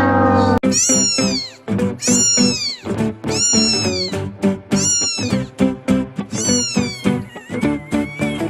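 A cat meowing over and over, six meows about a second apart, each falling in pitch, over background music with a steady beat.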